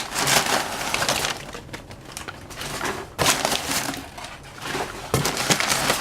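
A cardboard shipping box being opened by hand, its flaps and packing material rustled and crackled in several spells.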